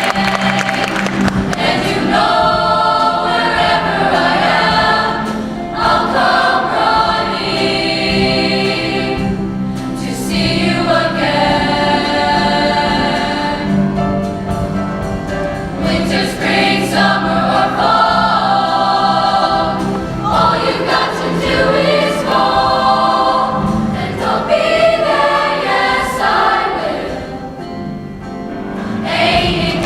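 A show choir singing in harmony over musical accompaniment, with held low notes under the shifting voices.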